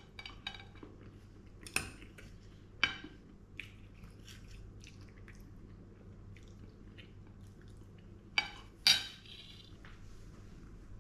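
Fork and knife clinking and scraping on a ceramic plate while a man eats, with quiet chewing between. A few sharp clinks stand out, the loudest two close together near the end.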